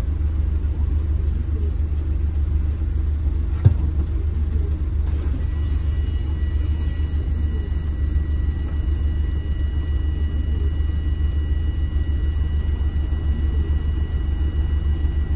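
Bus engine idling, a steady low rumble heard from inside the passenger cabin. A single sharp knock comes a little under four seconds in, and a thin steady high tone joins about five seconds in.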